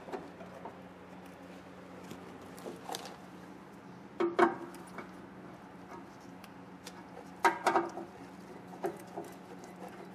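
Screwdriver loosening the screws on a DTG printer's carriage cover: scattered small clicks and scrapes, with a cluster about four seconds in and another about seven and a half seconds in, over a faint steady hum.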